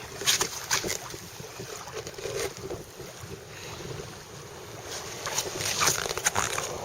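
Wind buffeting the microphone over water around a kayak, with sharp splashes and knocks, several coming together in the last two seconds.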